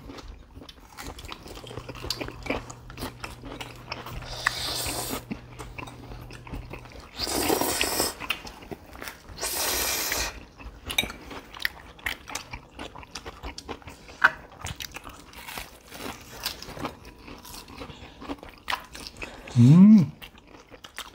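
People eating at a table: chewing and crunching bites of food, with scattered clicks of cutlery on plates. Two louder noisy stretches come around the middle, and there is a short hummed "mm" near the end.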